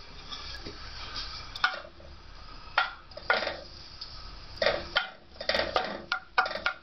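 Wooden spoon stirring minced garlic in oil in a stainless steel pot: a string of short, irregular scrapes and knocks against the pot, starting about a second and a half in and coming closer together in the second half.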